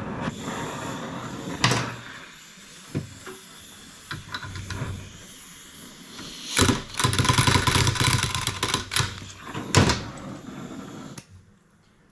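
Metal tool work on a rusted, seized exhaust manifold bolt on a Ford FE 390 cylinder head: socket and wrench clanking and scraping, with several sharp knocks. A longer, louder spell of metal noise comes about two-thirds of the way through.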